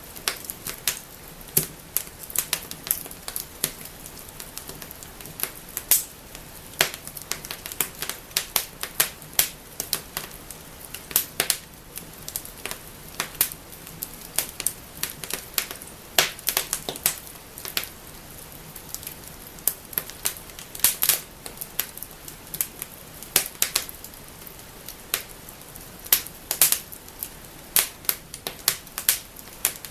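Wood fire burning in a fireplace, crackling and snapping with many sharp, irregular pops over a faint steady hiss.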